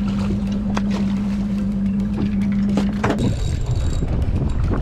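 Boat motor running with wind on the microphone. A steady hum cuts off about three seconds in, leaving a lower rumble, with a few faint clicks.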